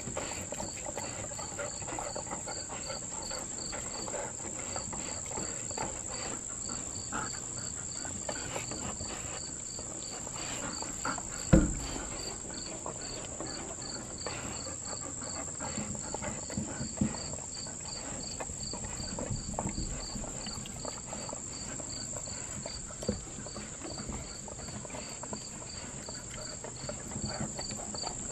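Dogs licking peanut butter off rubber lick mats stuck to a glass door: small wet licking and smacking sounds, with one loud thump partway through. A steady high-pitched pulsing chirp runs underneath.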